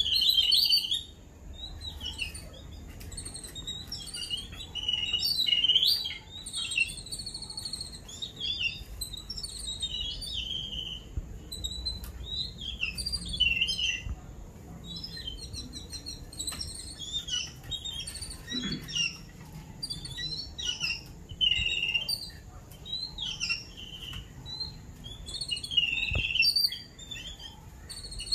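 A group of babblers chattering, with many short, harsh calls overlapping one another without a break, as adults gather to feed chicks.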